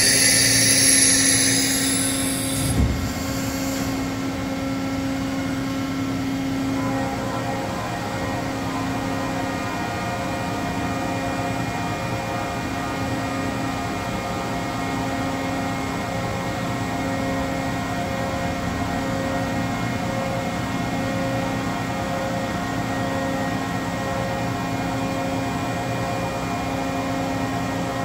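Large CNC bridge mill running while its ram head travels down. A loud hiss cuts off about two and a half seconds in, followed by a single thump. After that there is a steady machine hum, with tones pulsing in and out every second or two.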